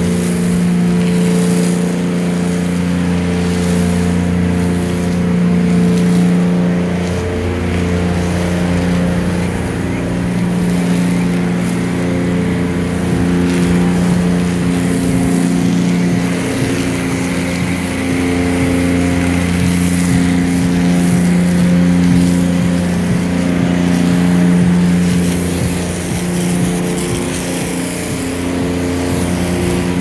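Self-serve car wash's high-pressure spray gun working: a steady, loud pump hum under the hiss of the spray.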